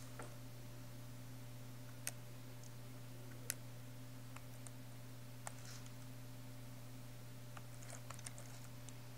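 Single key presses on a netbook keyboard while stepping through its BIOS menus. A few sharp clicks come a second or two apart, then a quick cluster of presses near the end, over a steady low hum.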